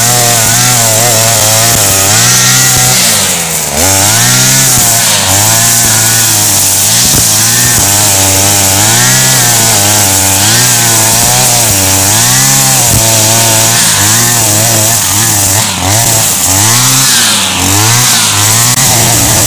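Backpack petrol brushcutter running at working speed while cutting tall grass. Its engine note sags and recovers about once a second as the cutting head sweeps into the grass.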